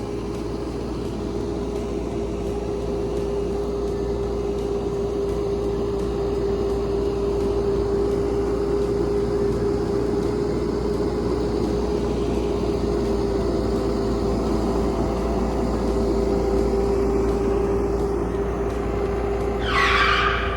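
Bobcat 337 compact excavator's diesel engine running steadily, with a constant whine over a low rumble. A brief high squeal sounds near the end.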